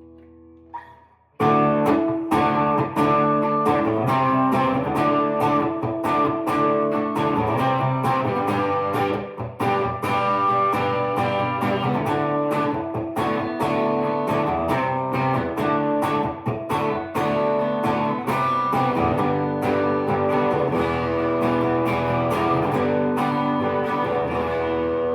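1960s Höfner Verithin thin hollow-body electric guitar being played: a fading chord and a single note, then about a second and a half in a quick picked passage of notes and chords starts and runs on, ringing.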